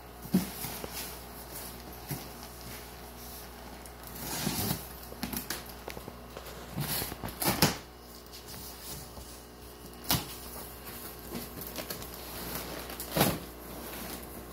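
Plastic bags of water holding shipped fish being lifted out of a cardboard box and set down on a wooden workbench: scattered knocks and crinkling, with the sharpest knocks near the start, about halfway, at about ten seconds and near the end.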